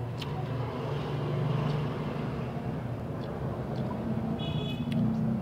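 A steady low motor hum, with a few light clicks as green onion stalks and lettuce are snapped and handled, and a brief high chirp near the end.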